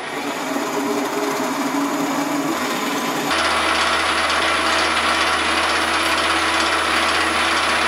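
Metal lathe running as a silver-steel shaft is machined: the steady hum of the lathe's motor and gearing under the hiss of metal cutting. The sound shifts abruptly about three seconds in.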